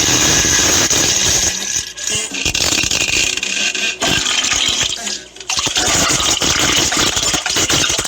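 A run of long, rasping fart sound effects, one after another, with short breaks about two, four and five seconds in.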